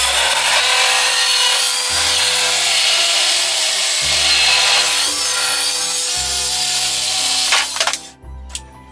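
Table saw cutting through wood: a loud, steady blade rasp with a shifting whine, stopping abruptly near the end and followed by a few light clicks.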